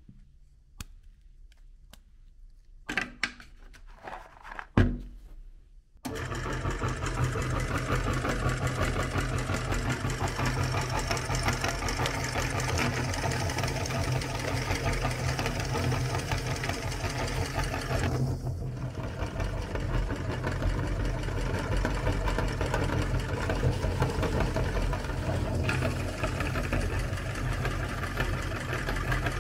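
A few light clicks and taps of cookies being handled, then about six seconds in a motor-driven aluminium meat grinder starts and runs steadily with a low hum, grinding hard coloured cookies into crumbs.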